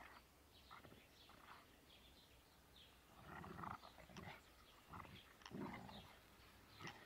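A Hovawart and an English Setter puppy play-fighting, with quiet growls and snarls in several short bursts, the strongest in the second half.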